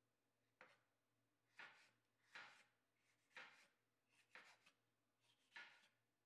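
Chef's knife slicing a bell pepper into strips on a bamboo cutting board: about six faint, separate cuts, roughly one a second, each a short crunch through the pepper ending on the wooden board.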